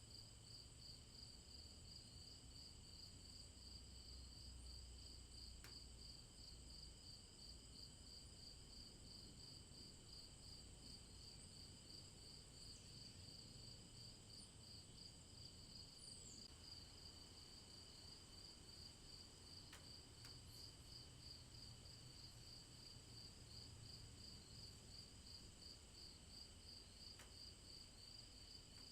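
Faint night insect chorus: crickets chirping in a steady, fast pulsing trill with a higher steady hum of other insects behind it. Three or four single soft ticks, like drops falling, are scattered through it.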